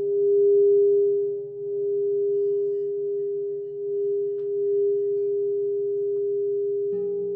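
Crystal singing bowls sounding a sustained pure tone that swells and fades in slow waves, with a lower pulsing hum beneath it. Another lower bowl tone comes in near the end.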